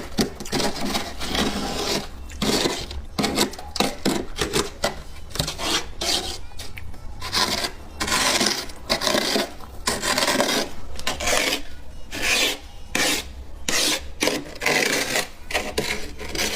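Repeated irregular rasping, scraping strokes.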